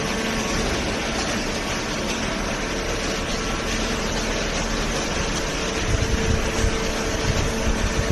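Cardboard baler's hydraulic power unit running: a steady machine hum with a constant tone, joined by low thuds from about six seconds in.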